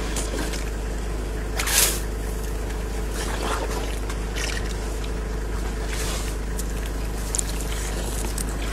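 African elephant working the tip of its trunk in a muddy roadside puddle: several short wet squelching splashes, the loudest about two seconds in, over a steady low hum.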